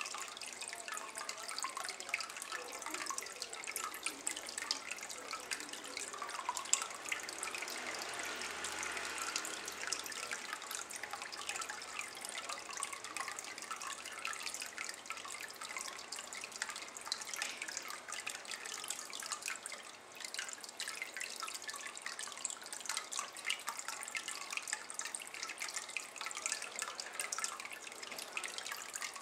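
A thin stream of water falling into a shallow ceramic water bowl: a steady trickle and splash of many small drips on the water surface.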